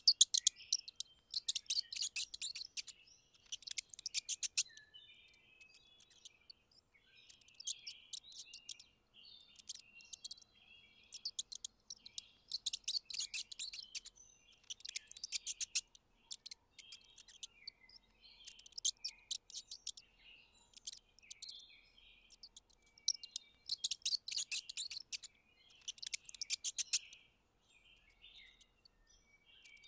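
Mice squeaking: rapid high-pitched chirping squeaks in quick trains of about a second each, repeating every second or two with short pauses between.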